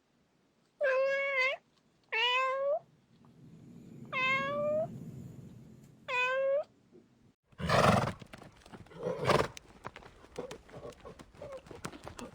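A domestic cat meowing four times, each meow a short pitched call of about half a second. About seven and a half seconds in, the sound changes to a run of noisy bursts and knocks.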